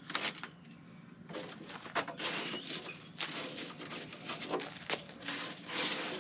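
Scattered light clicks, knocks and scraping from handling a lead-acid battery and its cables in a metal battery tray.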